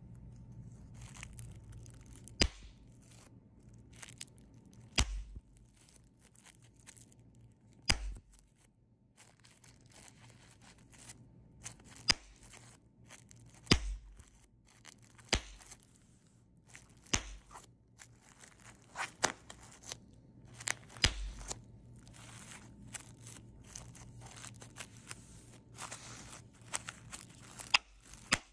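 Large-cell plastic bubble wrap popped one bubble at a time between the fingers: sharp pops at irregular intervals, every second or two, with the plastic crinkling between them.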